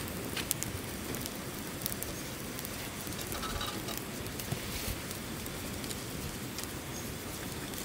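Wood campfire crackling with scattered sharp pops, over a steady rushing of a flowing river.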